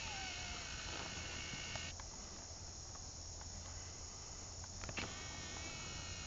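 Steady high-pitched chirring of insects in a summer chorus, typical of crickets. A fainter tone with several overtones comes in over it during the first two seconds and again from about five seconds in, and there are a few short clicks.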